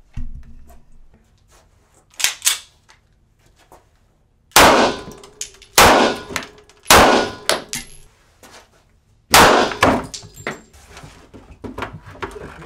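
Four 9mm full-metal-jacket handgun shots fired into a laptop, the first three about a second apart and the fourth about two and a half seconds later, each with a short ringing tail. A shorter, quieter clack comes about two seconds in, before the shots.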